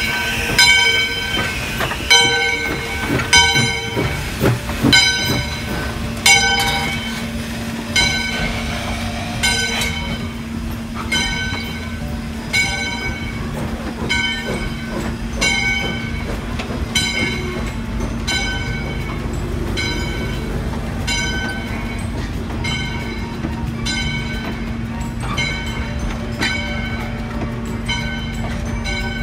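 A steam passenger train pulls out past the platform. Steam locomotive No. 40's bell rings about once a second, loudest at first and fading as the engine draws away, over the steady rumble and rolling clatter of the wooden-era passenger coaches going by.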